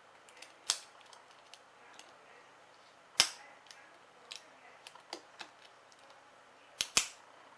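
Sharp clicks and taps of small metal tools and phone parts being handled during an iPhone repair: one about half a second in, the loudest about three seconds in, and a quick pair near the end, with fainter ticks between.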